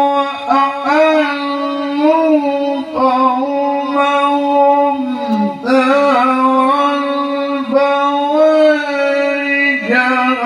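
A man's voice reciting the Quran in the melodic tilawah style, amplified through a microphone: long held, high notes with wavering ornaments, broken by short pauses between phrases.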